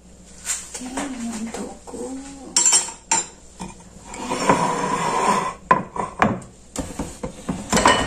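Chopsticks and a ceramic serving bowl clinking against a small cooking pot as food is dished up. Several sharp clinks and clatters, with a noisier stretch of handling sound around the middle.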